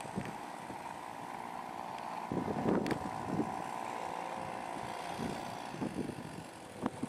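A small outboard motor on a jon boat running steadily at low speed, a distant even hum. Gusts of wind buffet the microphone for about a second a couple of seconds in, and there are a few sharp clicks near the end.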